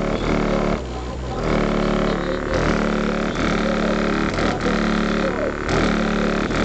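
A rap track played loud through a car stereo with two Audio System X-Ion 15-inch subwoofers. A bass line of held notes repeats, each note lasting about half a second to a second.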